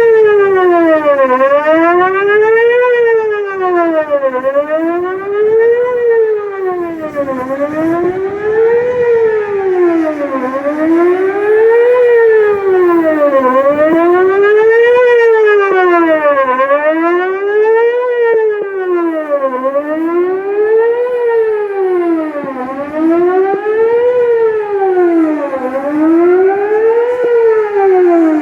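Whelen WPS-4008 electronic outdoor warning siren sounding a test signal. Its tone rises and falls in a steady wavering cycle, peaking about every three seconds.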